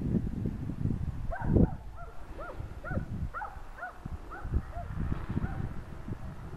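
Wind rumbling on the microphone, with a series of about ten short, arched animal calls, two or three a second, starting about a second in and fading out near the end.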